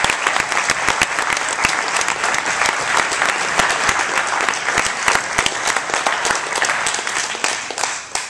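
Congregation applauding after a song: dense, steady clapping that dies away at the very end.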